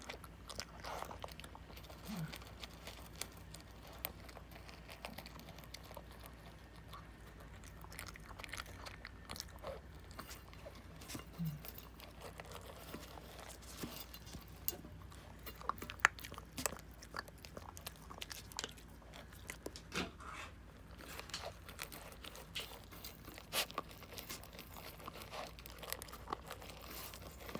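A pet eating crushed dry kibble mixed with chicken from a stainless steel bowl: a long run of quick, faint crunches and chewing clicks, with one sharper click about 16 seconds in.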